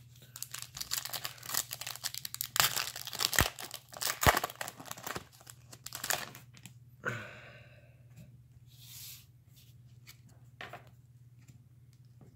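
Foil wrapper of a trading-card pack crinkling and tearing as it is ripped open: a dense run of crackles and rips lasting several seconds. Fainter rustling of the cards being handled follows, over a steady low hum.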